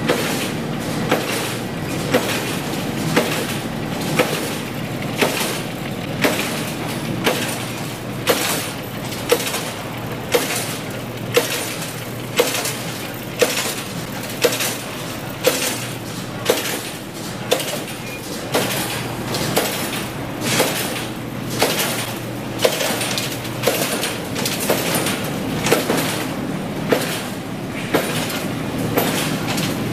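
Wire straightening-and-cutting machine running, a steady mechanical rattle with a sharp metallic clank about once a second as each length of steel wire is sheared off.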